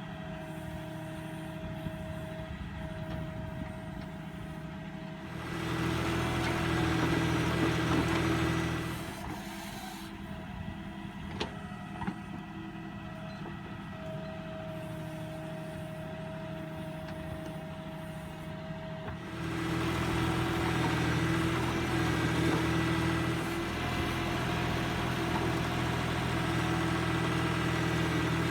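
Backhoe loader's diesel engine running steadily at low revs, rising to higher revs under load about five seconds in for a few seconds and again from about twenty seconds on, as the machine works its hydraulics digging and loading soil.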